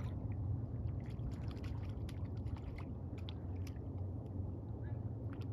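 Lake water lightly splashing and trickling close by a small fishing boat, with many small drips and ticks over a steady low rumble.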